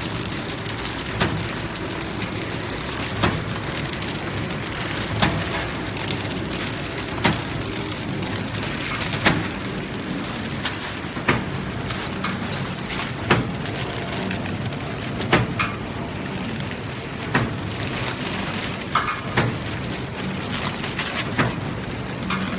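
Horizontal flow-wrap (pillow) packing machine running, a steady mechanical hiss with a sharp click about every two seconds.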